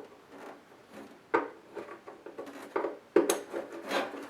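Handling noises as a power adapter cable is fitted to the back of a thermo-electric dehumidifier: irregular knocks, clicks and rubbing, with sharp knocks a little after a second in and again just past three seconds.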